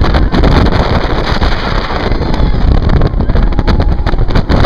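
Loud wind rushing and buffeting the microphone of a camera riding on the Dueling Dragons inverted roller coaster at speed, over the rumble of the train on the track.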